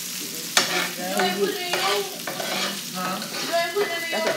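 Metal spatula scraping and stirring shaved steak on an electric griddle, several separate scrapes over the meat sizzling as it fries.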